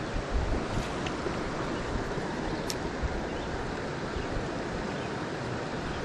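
Creek water flowing steadily over a shallow, rocky riffle, with two faint clicks, one at the start and one about two and a half seconds in.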